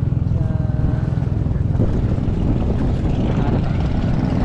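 Boat engine running steadily with a fast low throb, heard from on board.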